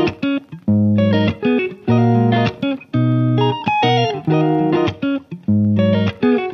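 Background music: guitar playing chords in a steady rhythm, with bass.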